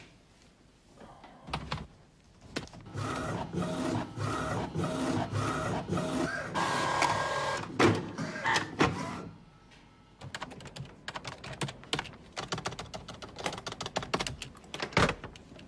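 A printer running for several seconds, followed by rapid clicking of typing on a keyboard.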